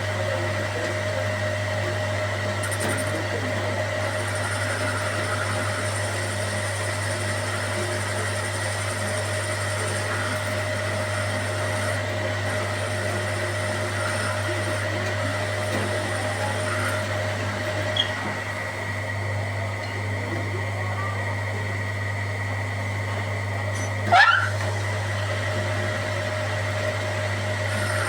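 A steady machine hum that keeps an even pitch and level, with a single click near the middle and a brief gliding squeak near the end.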